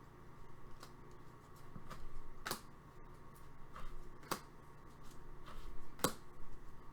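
Upper Deck hockey trading cards being handled and flipped through: soft sliding with a handful of sharp clicks, the three loudest spaced about two seconds apart.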